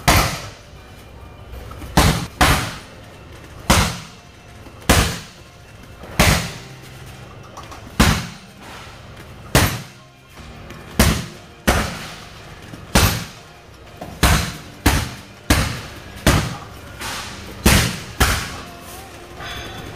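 Bare shin kicks slamming into a hanging heavy bag, about twenty sharp thuds at roughly one a second, some in quick pairs, each with a short ringing tail.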